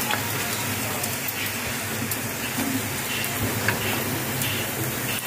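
Hot cooking oil sizzling and crackling as wavy crackers deep-fry in a non-stick frying pan, with light scrapes and taps of a slotted spatula stirring them.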